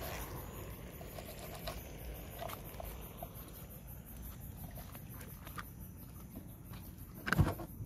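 Faint scattered clicks and taps of handling, then one loud, short thump near the end as a plastic picnic cooler's lid is knocked open.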